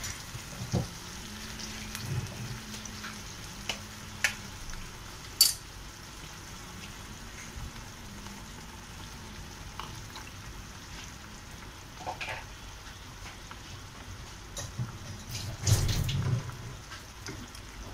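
Thick spinach purée gravy simmering and sizzling in a pan over a low flame, a steady hiss with occasional sharp pops. A brief louder clatter about two seconds before the end.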